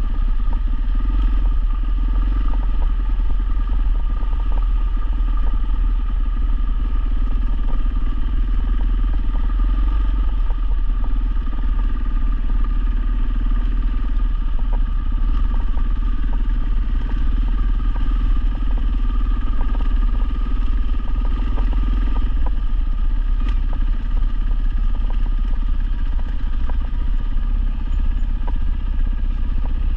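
Dual-sport motorcycle engine running steadily while riding, its pitch nearly constant, with a strong low rumble and scattered small clatters and ticks.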